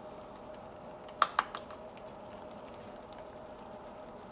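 A spoon tapping against the rim of a bowl to knock off foam skimmed from simmering cranberry sauce: two sharp clicks a little over a second in, then a few lighter taps, over a steady faint hum.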